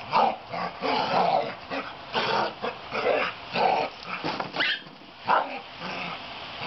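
Play-growling and yipping from a Chihuahua–Maltese puppy and a Chow Chow–Rottweiler mix at play, in about ten short bursts that stop about five and a half seconds in.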